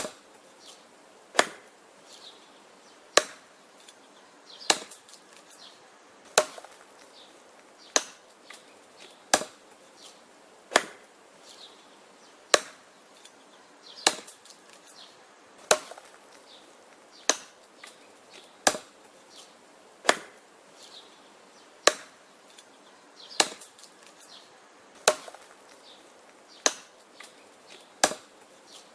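Wood being chopped: sharp chops in a steady rhythm, about one every one and a half seconds, many followed by a fainter knock.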